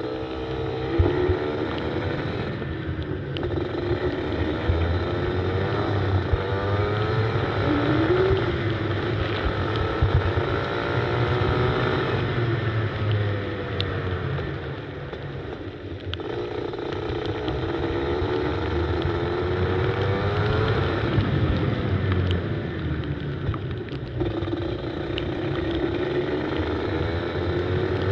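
Go-kart engine heard on board, accelerating with a rising pitch for several seconds and then dropping off briefly, about four times over, as it revs up each straight and lifts for the corners.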